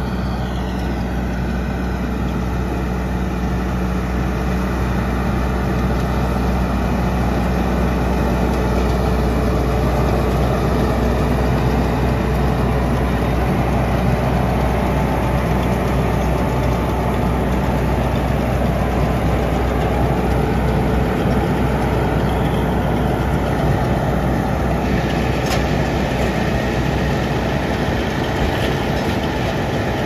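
Fendt 412 tractor's diesel engine running steadily under load while a Claas Rollant 255 round baler works behind it, its pickup and bale chamber turning as it gathers hay windrows into a round bale.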